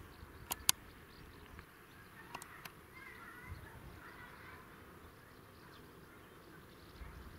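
Quiet countryside ambience with faint bird chirps and insect sounds. Two sharp clicks about half a second in, and a few softer ones a couple of seconds later.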